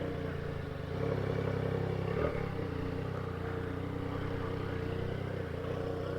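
Yamaha Tracer 900 GT's inline three-cylinder engine running steadily through a 3-into-1 exhaust, a little louder for about a second from about a second in.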